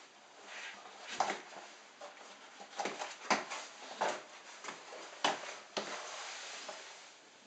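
Irregular sharp knocks, about six of them, and rustling scrapes from a Russian Blue cat rolling on the carpet and pawing at the wall and front door.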